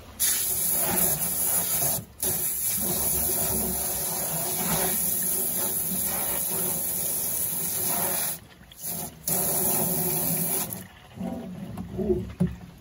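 Water hissing out of a garden hose's pistol-grip spray nozzle onto fish fillets as they are rinsed. The spray cuts off briefly about two seconds in, stops and restarts twice a little past the middle, and shuts off near the end.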